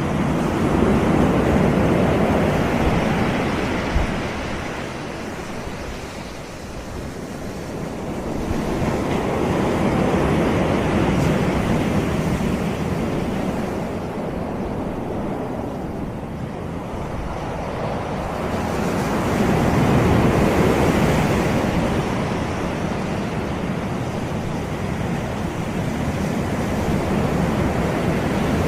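Sea waves breaking and washing up a beach, the surf swelling and ebbing in slow surges about every nine to ten seconds.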